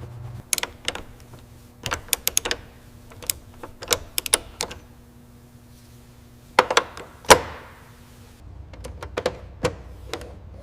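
Workshop handling noises: irregular clusters of sharp clicks and knocks, the loudest about seven seconds in, over a faint steady hum that stops about eight seconds in.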